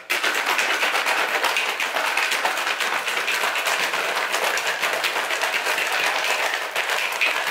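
Plastic shaker bottle of water being shaken hard and fast to dissolve a powdered drink mix: a dense, steady rattle of sloshing liquid.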